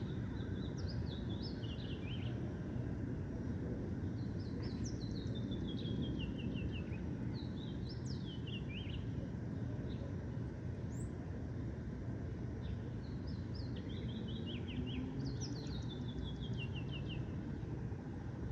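A songbird singing phrases of quick chirps that step down in pitch, about five phrases several seconds apart, over a steady low background rumble.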